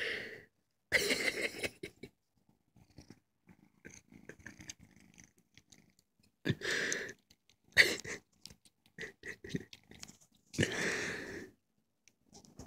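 Tabby cat purring close up in several short bouts of about a second each, with faint rustles and small clicks between them.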